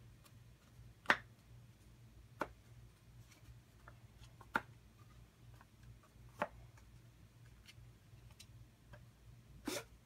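Wooden puzzle box being worked by hand as its panels are slid one after another to open it: a string of sharp wooden clicks and knocks, about five clear ones a second or two apart, with fainter ticks between them.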